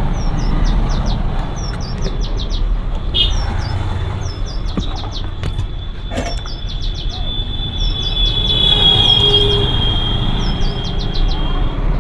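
A bird repeatedly sings a short high phrase, a falling chirp followed by a quick run of short notes, about every two seconds, over a steady low hum. Around the middle a long high-pitched squeal comes in and runs for a few seconds, and there are a couple of sharp clicks.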